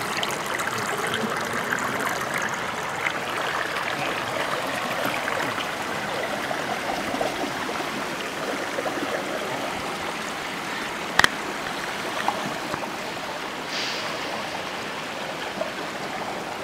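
Stream water running steadily over and between boulders. One sharp click sounds about two-thirds of the way through.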